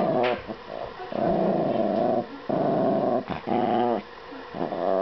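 Yorkshire terrier growling in about five long growls with short breaks, guarding the Shake Weight it lies on as the owner's hand reaches for it.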